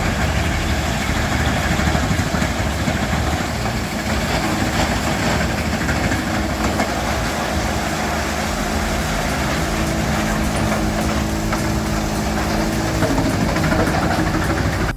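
Large Wüst SMC 812 TCR wood chipper running steadily, its engine and big rotor chewing through softwood logs in a dense grinding rumble. A steady hum comes through it from about four to thirteen seconds in.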